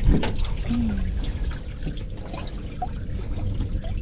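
Water splashing and trickling in a boat's bait livewell as a landing net is worked through it, with a knock right at the start.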